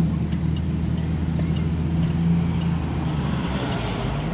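A car engine running at a slow cruise, heard from inside the cabin as a steady low hum over a deeper rumble. The deepest part of the rumble drops away about three and a half seconds in.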